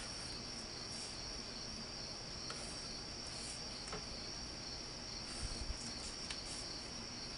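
Faint steady high-pitched whine, with a few soft ticks and taps.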